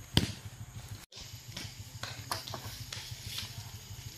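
Dry wooden sticks and branches knocking together as firewood is handled and dropped onto a pile. One loud sharp knock comes just after the start, then several lighter knocks follow at irregular intervals.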